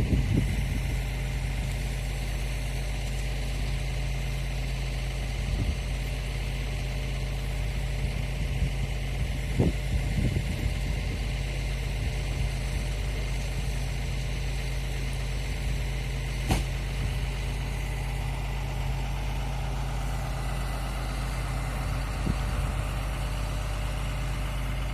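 Horizontal directional drilling rig's engine running steadily with a low hum, with a few short knocks at intervals and one sharp click about two-thirds of the way through.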